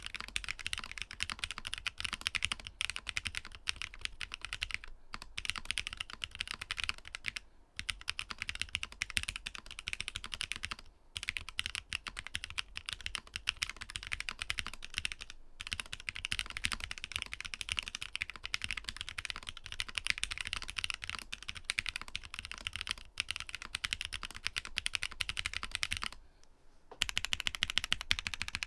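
Mechanical keyboard fitted with Momoka Frog switches being typed on quickly and continuously, a dense run of keystroke clacks with a few brief pauses and a longer one near the end.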